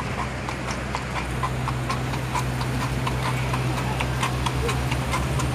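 Carriage horse's hooves clip-clopping on the road at a steady walking pace, about three strikes a second, over a steady low rumble.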